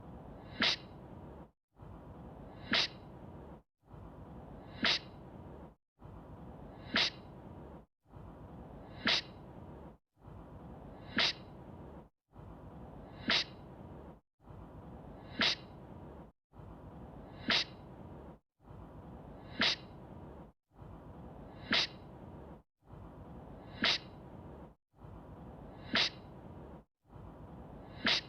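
A person's sneeze looped over and over, about one every two seconds, with a brief cut to silence between repeats. Each one is a breathy intake ending in a sharp, high sneeze.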